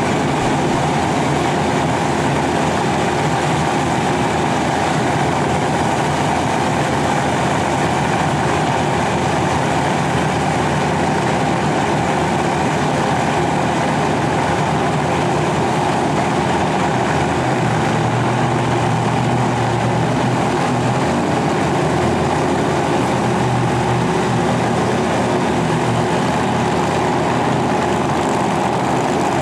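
Steady engine noise from race cars and tow vehicles at a drag strip starting line. A deeper engine note joins from about 17 seconds in and fades again by about 25 seconds.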